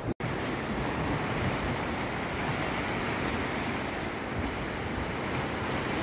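Sea surf breaking and washing over a rocky shore, a steady rushing noise. The sound cuts out for a split second just after the start.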